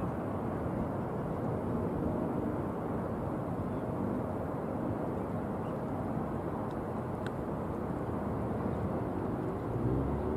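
Steady low rumble of a distant jet airliner on approach, mixed with outdoor background noise.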